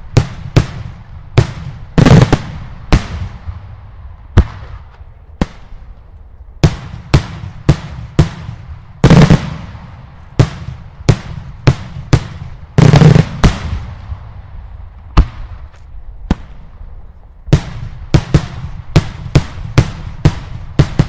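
Daylight fireworks going off: loud aerial shell bursts, sharp bangs at irregular intervals, the heaviest followed by a long fading echo. Near the end the bangs quicken to about two a second.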